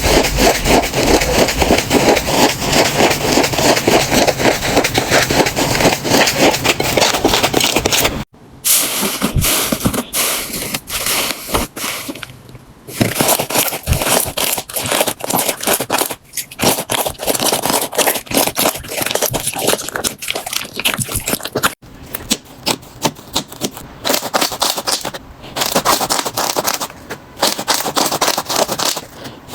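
Slime being squished and pressed, making dense crackling and popping clicks. About a third of the way in it breaks off, then returns in shorter crackly stretches with brief pauses between them.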